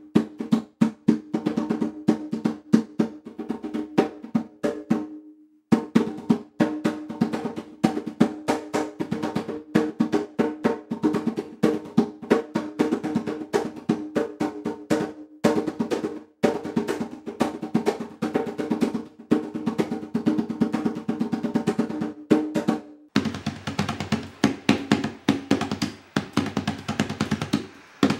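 Djembe played by hand in a fast, dense rhythm of sharp strikes over a steady ringing note from the drum head. It breaks off briefly a few times, and the last few seconds sound hissier and thinner.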